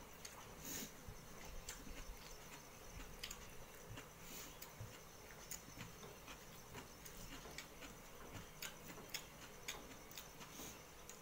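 Fingers mixing rice on a steel plate: faint, irregular small clicks and scrapes, with a faint steady high whine behind them.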